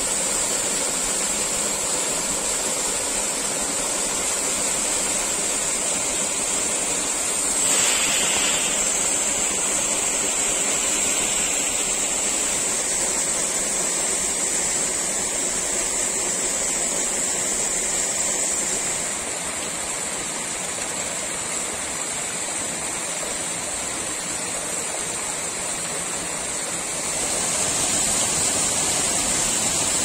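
Mountain waterfall pouring into a rock pool: a steady rush of falling water. It drops a little in level for several seconds in the second half and rises again near the end.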